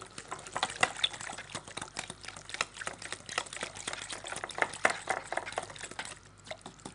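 Wire whisk beating a thin batter of milk, oil, sugar and ground walnuts in a glass bowl. Quick, rapid clinks of the wires against the glass with a wet sloshing, thinning out about six seconds in.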